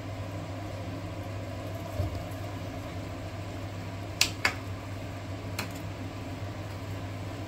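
A metal ladle clinking against a metal cooking pot three times, about four to six seconds in, as a fish curry is stirred, over a steady low hum.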